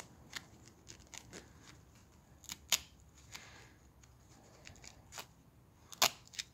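A piece of sandpaper being folded and fitted into the bent end of a welding electrode: scattered sharp clicks and short scratchy rustles, the loudest two near the middle and near the end.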